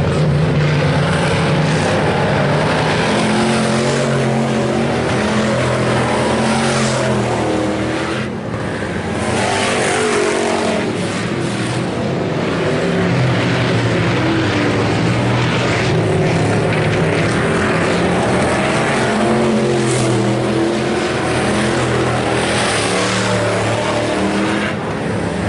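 Several IMCA Hobby Stock race cars' V8 engines running together on the track. Their overlapping pitches rise and fall as the cars circle.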